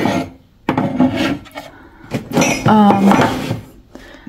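Ceramic and glass mugs clinking and knocking against each other as they are moved around on a cupboard shelf, with several short clatters. A brief wordless vocal sound comes a little under three seconds in.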